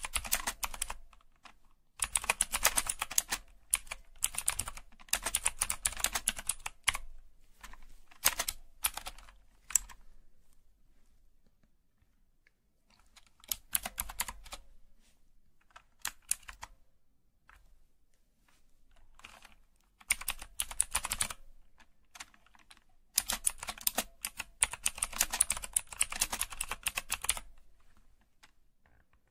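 Felt-tip marker scratching across paper in quick drawing strokes, coming in bursts of one to several seconds with short pauses between them.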